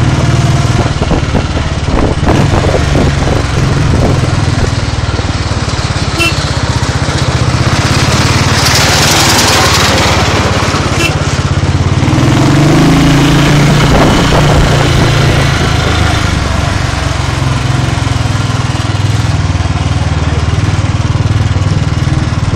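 Small motorcycle engine running steadily while riding along, with a broad rush of wind-like noise over the microphone that swells briefly about nine seconds in.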